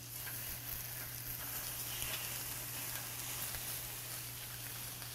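Slices of pen shell scallop adductor and shiitake mushrooms sizzling on a hot grill pan. The sizzle picks up as the adductor slices are slid onto the pan, then holds steady.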